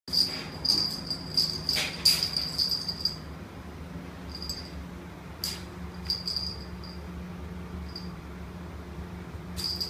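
Small bell on a cat toy jingling as a kitten bats it about: quick runs of shakes for the first few seconds, then a handful of single jingles. A low steady hum runs underneath.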